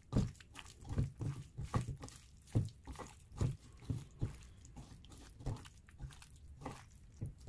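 Raw anchovies being mixed in a wet spice-and-flour masala batter: irregular soft squelches and squishes, a few each second.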